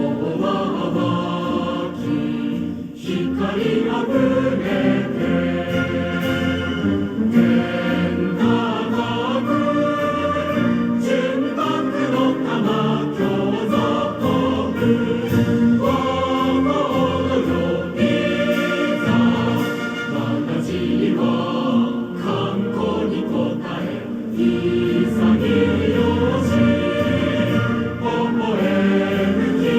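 Recorded song played over an outdoor TOA horn loudspeaker: a choir singing with band accompaniment, running without a break.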